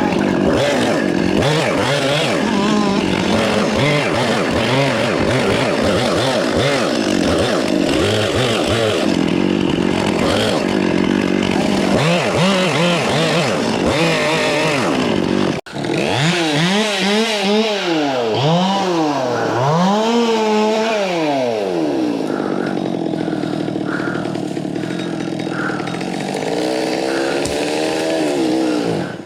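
Chainsaw cutting melaleuca wood, its two-stroke engine revving up and down repeatedly as it bites into the tree. There is a sudden break about halfway, then more deep rev swings, and the saw stops abruptly at the end.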